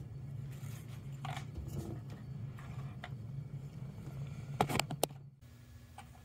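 Quiet handling of ceramic mugs and a folded paper bill, with a low steady hum underneath. A little before the five-second mark come a few sharp clinks as a mug is set down onto the bill bridging two other mugs.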